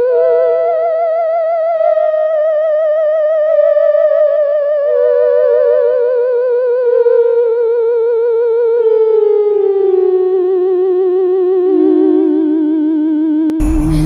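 An eerie theremin-style ghost tone with a fast, deep wobble, sliding slowly downward note by note. A burst of noise cuts in just before the end.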